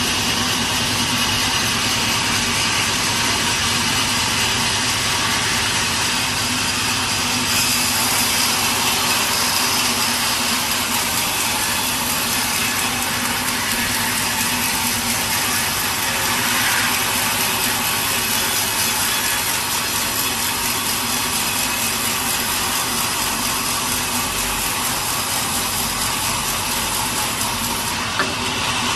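Sawmill saw running steadily and cutting through a log, a continuous loud whine with a rasping hiss of blade in wood. The cut grows brighter and harsher about a quarter of the way in and eases a little near the end.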